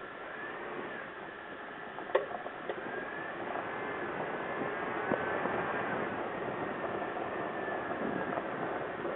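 Lifted second-generation Toyota Tacoma with a steady running noise that grows a few seconds in, and a sharp pop about two seconds in followed by a couple of lighter clicks. This is the popping noise from the truck's 3-inch lift with Old Man Emu coils and Total Chaos upper control arms, and its cause is unknown.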